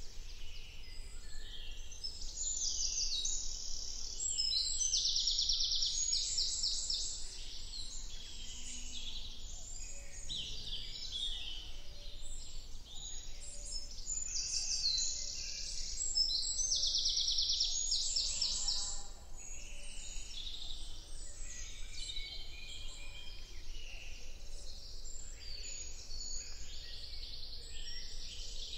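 Woodland birds singing together, several voices overlapping, in a stereo field recording. Loud, rapid high trills stand out twice, a few seconds in and again about halfway through.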